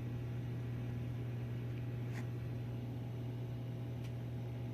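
Steady low electrical-sounding hum with an even hiss, and two faint ticks about two and four seconds in.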